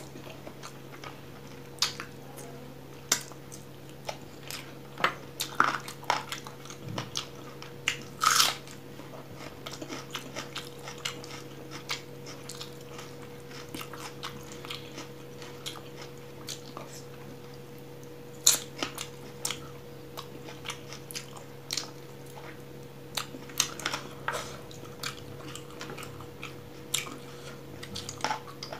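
Close-miked mouth sounds of a person eating rice and chicken curry by hand: wet chewing with irregular smacking clicks, a few of them sharper and louder, over a steady low hum.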